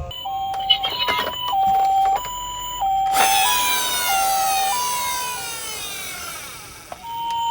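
Japanese ambulance-style two-tone siren, alternating high and low in steady 'pee-po' steps, broken off for a moment and starting again near the end. About three seconds in, a sudden whoosh falling in pitch comes over it and fades away over a few seconds, and a few clicks are heard in the first second or so.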